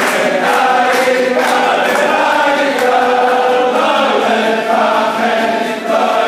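A crowd of men singing a Hasidic dance melody together in unison, with rhythmic hand clapping and a violin playing along.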